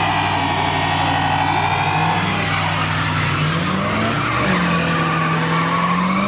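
Car doing a burnout: the engine is held at high revs while the tyres spin and squeal. The engine pitch climbs a couple of times.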